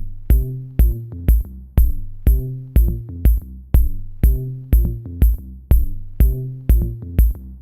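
Electronic background music with a steady kick drum, about two beats a second, a ticking hi-hat and a low synth bass line.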